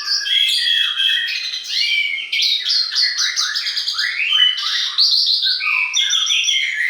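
Dense chorus of songbirds: many overlapping chirps, trills and quick whistled notes sliding up and down in pitch, without a break.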